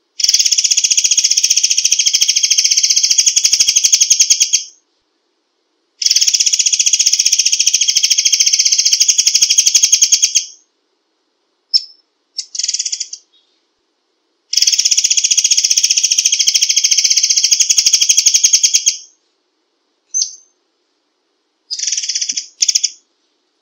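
Murai air songbird singing in rapid-fire bursts ('tembakan'): three long, fast, rattling trills of about four and a half seconds each, pitched high, with a few short calls in the gaps between them.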